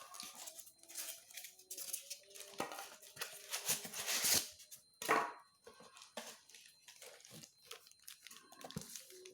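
Parcel packaging being torn open and crinkled by hand, in irregular rustling and tearing bursts, the loudest about four to five seconds in.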